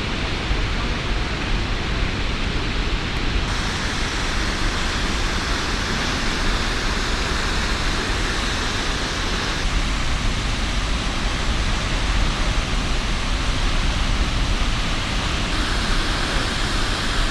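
Waterfall rushing: a steady, even roar of falling water, its tone shifting slightly a few times where the footage cuts.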